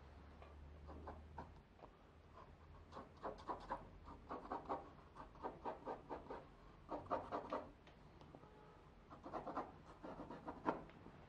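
Graphite pencil scratching on drawing paper in quick runs of short sketching strokes, several bursts a second or so apart.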